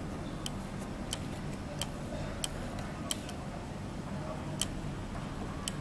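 KK-9913 12-band digital radio receiver tuning through the AM band near 1 MHz. It gives a steady low hum and static with sharp clicks about every two-thirds of a second.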